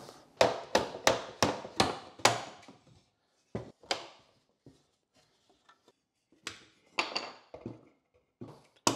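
Hammer blows knocking apart a small nailed pine box: a quick run of about seven sharp wooden knocks in the first two and a half seconds, then a few scattered knocks, one of them loud near the end.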